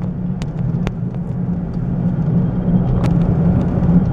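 Car interior noise while driving at road speed: a steady low rumble of engine and tyres, with a few faint clicks.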